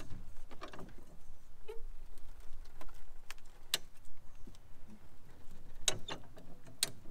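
High-lift farm jack being pumped by its handle, its climbing pins catching with a few sharp metallic clicks a second or more apart, as it pushes a crushed pickup cab roof back up from inside.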